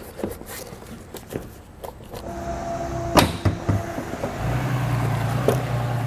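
Taillight assembly on a 2019 Ford Escape being pulled straight out of the body, with small plastic clicks and one sharp snap about three seconds in as its retaining clips let go. A steady low mechanical hum starts a little past the middle and grows louder.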